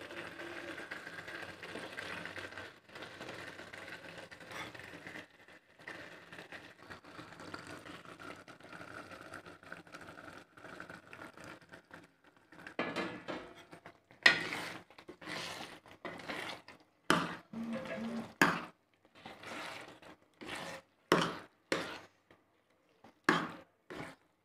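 A metal ladle working roasted eggplant into a thick pea-and-tomato masala in a cooking pan. For the first half there is a faint steady hiss from the pan. From about halfway on come a series of short, separate scraping and knocking strokes as the ladle mashes and stirs the mixture against the pan.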